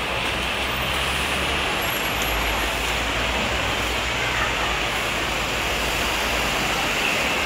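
Steady road traffic noise from a multi-lane city street: a continuous rumble and hiss of passing cars and buses with no single vehicle standing out.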